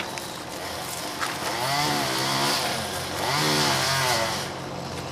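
Chainsaw engine revving up and back down twice, its pitch rising and falling with each rev.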